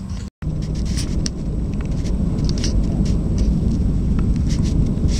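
Jet airliner heard from inside the cabin as it rolls along the runway: a steady, loud rumble of engines and wheels with light cabin rattles, after a sudden edit cut to silence near the start.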